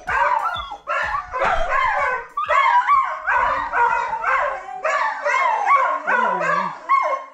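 Dog howling and yowling in a long run of wavering cries that bend up and down in pitch, one after another: a protest at being left behind when the other dogs go out.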